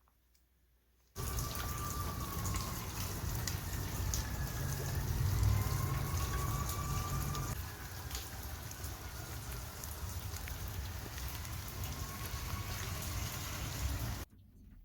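Outdoor ambience: a steady hiss with a heavy low rumble of wind on the microphone, and faint drawn-out tones drifting up and down. It cuts in about a second in and cuts off abruptly near the end.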